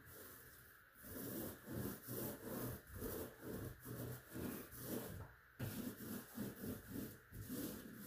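Paint roller rolled up and down over a patched drywall wall, a rhythmic rubbing of about two strokes a second, starting about a second in.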